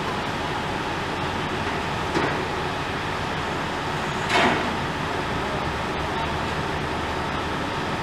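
Steady running noise of a municipal utility truck with a hose reel, its engine and equipment running as crews deal with a flooded street, with two brief louder swells about two seconds in and just past four seconds.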